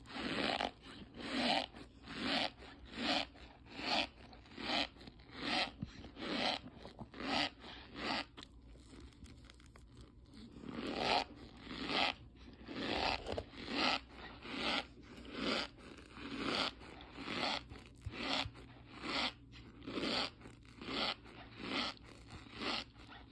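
Packed cornstarch squeezed and crushed by hand, a short crunch with each squeeze, repeated at an even pace of a little more than one a second, with a pause of about two seconds a third of the way through.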